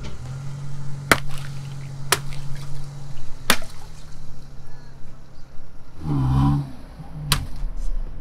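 Water balloons bursting under a car tyre: about four separate sharp pops, each with a splash of water. A low steady hum, likely the car's engine, runs under the first three, and there is a short, louder low rumble about six seconds in.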